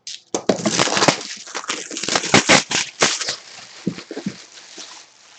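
Box packaging being torn and crinkled open by hand: a dense run of sharp crackles and rustles, loudest in the first three seconds, then a few scattered crackles as it dies down.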